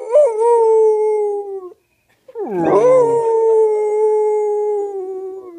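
Pet dog giving two lazy howls: the first holds a steady pitch and stops about a second and a half in; after a short pause a second, longer howl slides down at its start, then holds, slowly sinking, until near the end.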